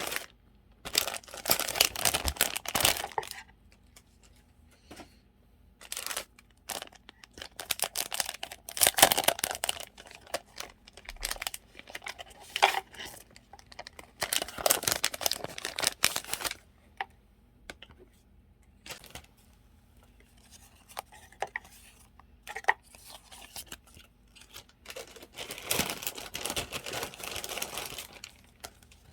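Paper sticker sheets and their packaging rustling and crinkling as they are handled and sorted, in several bursts of a second to three seconds, with light taps and clicks in between.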